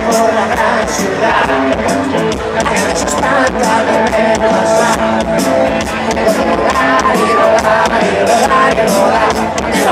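Live rock band playing loudly through a concert PA, electric guitars and drums with a voice singing, recorded from within the audience.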